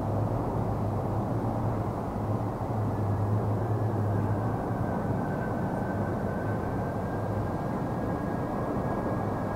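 Ilyushin Il-76's four turbofan engines on final approach to landing: a steady jet rumble, with a high whine joining about three seconds in.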